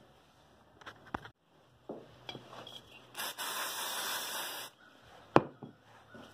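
Aerosol brake cleaner sprayed in one hiss of about a second and a half onto carburetor parts, among a few light clicks of handled metal parts and a sharp knock just after the spray.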